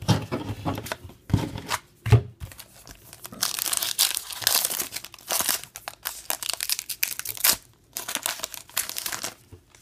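A trading card pack's wrapper being torn open and crinkled by hand. The rustling is loudest in the middle of the stretch, with a short knock about two seconds in.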